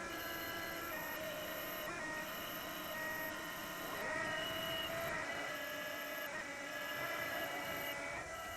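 CNC-converted Schaublin 125 lathe running a program: the motors whine in several steady tones that jump to new pitches every second or so as the axes and spindle change speed.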